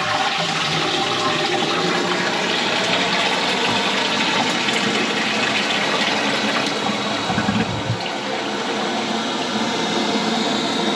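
Concealed toilet cistern flushing: water rushing steadily through the newly replaced flush valve. The valve then drops back and shuts, and the cistern starts refilling, showing the flush now resets properly.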